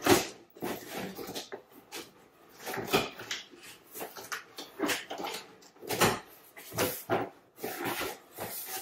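Packing tape on a cardboard shipping box being slit open, with cardboard flaps scraping: a run of irregular scratchy rasps.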